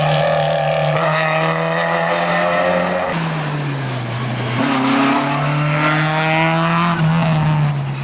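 Historic rally car's engine revving hard on a closed stage, its pitch dropping about three seconds in, climbing sharply again a couple of seconds later, and falling off near the end.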